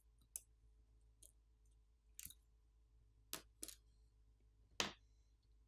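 Faint, scattered clicks and taps of small tools and parts during a smartphone disassembly, about six in all, irregularly spaced.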